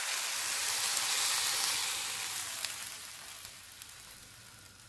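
Sautéed vegetables in a hot wok sizzling as vegetable broth is poured over them. The hiss fades away over the second half as the broth covers the pan.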